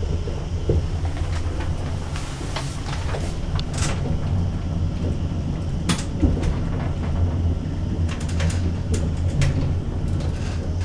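Passenger lift running: a steady low hum of the machinery, with scattered clicks and knocks throughout.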